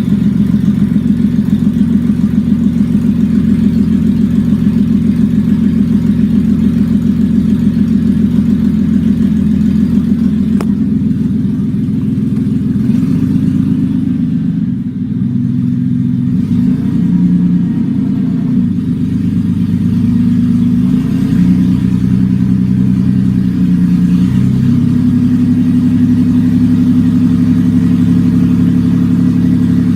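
Toyota Avalon's 3.0-litre V6 running on open exhaust manifolds with no exhaust pipes, a loud raw note with a throbbing pulse. Midway the engine speed shifts up and down a few times, then settles back to a steady run.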